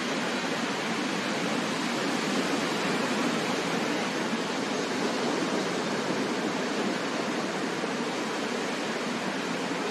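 Steady rush of ocean surf on the beach, swelling slightly a few seconds in.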